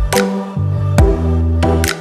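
Electronic background music with a steady beat: deep kick drums, a held bass line and sharp snare hits.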